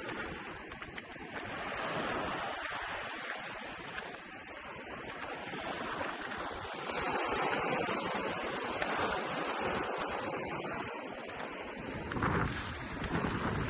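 Ocean surf washing onto a beach, the noise of the waves swelling and easing every few seconds. Near the end, wind buffets the microphone with a low rumble.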